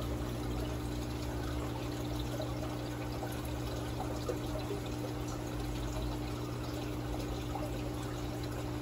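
Aquarium water running: a steady pouring trickle, as from a tank's filter or pump return, over a low steady hum.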